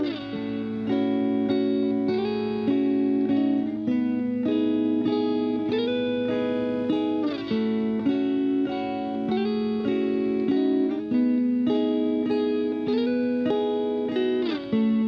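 Instrumental background music: a plucked-string melody whose notes slide up and down in pitch, over a held low note.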